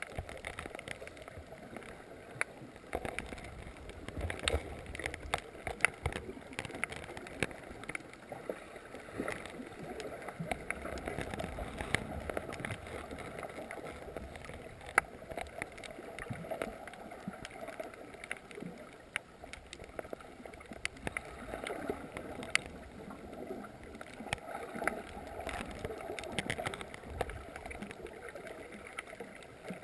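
Underwater ambience: an uneven, swelling wash of water movement with many scattered sharp clicks and crackles throughout.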